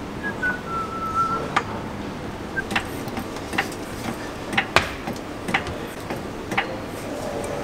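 Low-profile hydraulic trolley jack being pumped by its long handle to raise a car, giving sharp metallic clicks at irregular intervals, about eight in all, with a brief faint squeak near the start.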